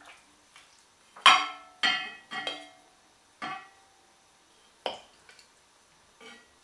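Serving ladle knocking and scraping against an enamelled pot and a ceramic plate while green beans are dished out: about six separate clinks with a short ring, the loudest about a second in.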